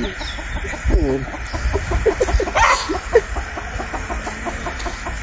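Chickens clucking, a run of short quickly repeated notes, with one louder call a little past the middle.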